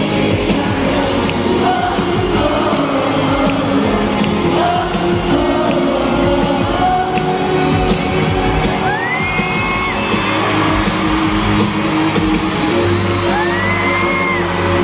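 Live K-pop concert heard from the stands of an arena: music and singing over the sound system, with fans screaming, two high cries standing out near the middle and near the end.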